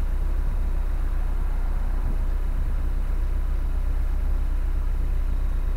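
A narrowboat's inboard diesel engine running steadily at cruising speed, a constant low rumble.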